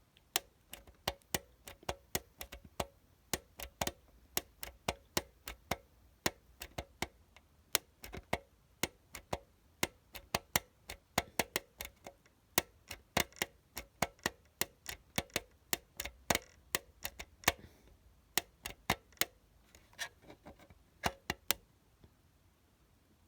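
Sharp, irregular clicking, two or three clicks a second with a couple of short pauses, as a screwdriver works the screws of a fire alarm.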